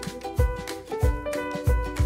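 Background music with a steady drum beat and plucked guitar-like notes.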